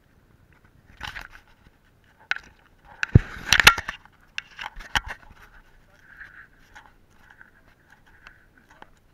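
Fingers rubbing and tapping on a small action camera's housing, making irregular scrapes and knocks. The loudest cluster comes about three seconds in, and softer scraping follows.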